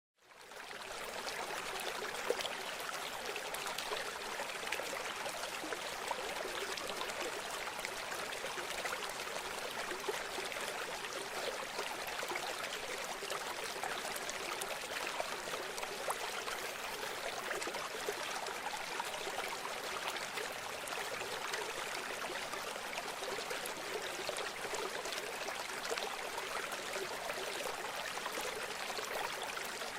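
A river flowing: steady rushing and babbling water, fading in over the first second.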